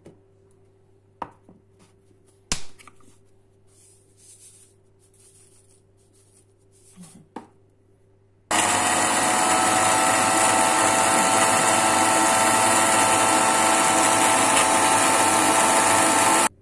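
Electric blender running at a steady speed for about eight seconds, grinding walnuts, garlic and parsley into a paste, then cutting off abruptly. Before it starts there are a few light clicks and knocks of the jar being handled.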